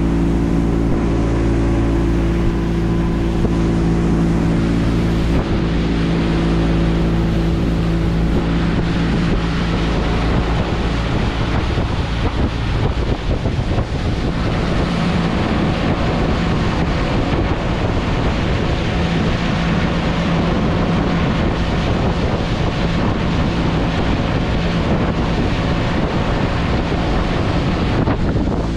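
Outboard motor of a small fiberglass fishing boat running steadily under way, with water rushing past the hull. From about eight seconds in, wind on the microphone and water noise grow and largely cover the engine's steady hum.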